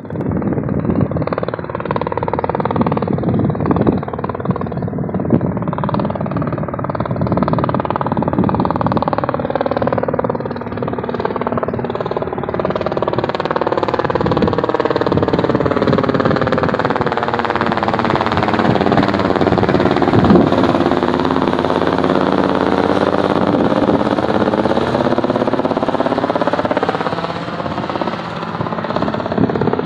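Robinson R44 Raven II helicopter flying overhead: the steady drone of its rotor and six-cylinder piston engine, growing brighter about halfway through as it comes closer, its tone sweeping slowly as it passes.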